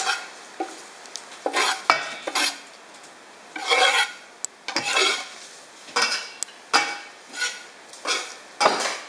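A utensil stirring and scraping around a bowl, mixing ingredients in repeated irregular strokes, about one or two a second.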